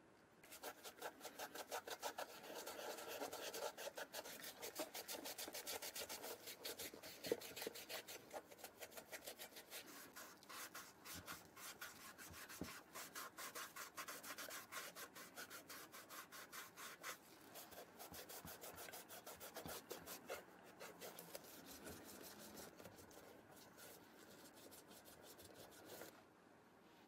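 Small bristle brush scrubbing the leather upper of a white sneaker in rapid back-and-forth strokes, stopping shortly before the end.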